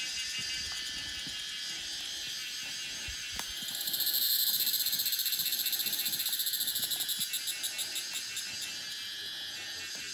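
Forest insects trilling: a steady high chorus, with one much louder high-pitched insect call that swells about four seconds in, then breaks into pulses that slow and fade away.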